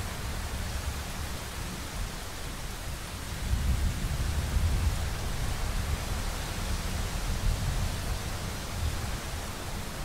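Steady summer rain falling, with a low rumble of distant thunder that swells between about three and five seconds in.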